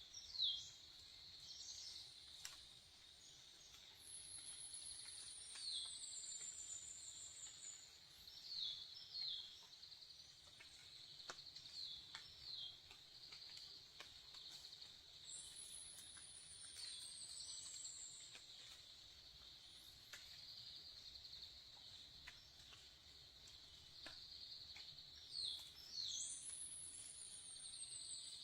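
Forest ambience: a steady, high insect drone, with small birds giving short downward chirps, often in pairs, every few seconds. Three times a long, high whistle slides downward over about two seconds.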